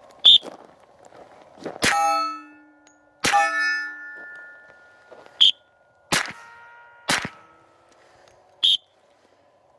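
Four 10mm Glock pistol shots, irregularly spaced, each followed by a steel target ringing with a clear metallic tone that dies away over about a second. Three short, sharp, high clicks come in between.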